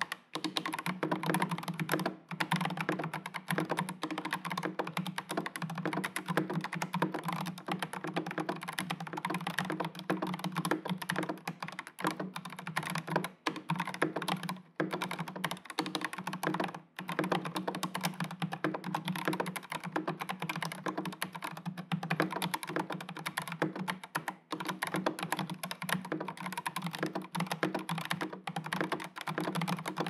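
Continuous typing on an NCR80 mechanical keyboard with stock, unlubed Strawberry Jelly tactile switches, a carbon fiber plate, case foam and PBT Cherry-profile keycaps: a dense stream of keystroke clacks with a few short pauses.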